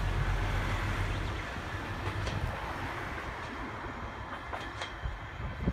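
Kominato Railway KiHa diesel railcar running away along the track, its low engine and wheel rumble fading steadily, with a few faint clicks of wheels over rail joints. A louder thump comes right at the end.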